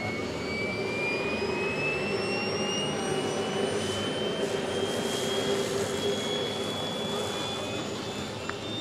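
Engines of a large three-engined radio-controlled Junkers Ju 52 model running as it comes in low and lands, with a high whine that climbs slowly and steadily in pitch throughout.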